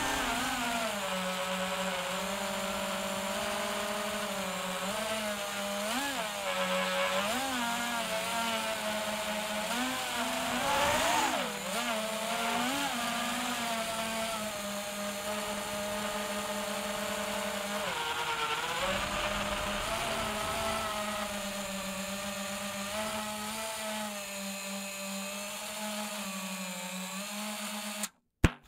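FPV quadcopter's motors and propellers buzzing in flight, the pitch swooping up and down with bursts of throttle. It cuts off abruptly near the end, followed by a single click.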